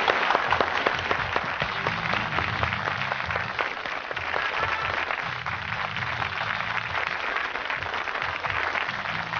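Sustained applause over the show's closing theme music, which carries a low bass line beneath the clapping.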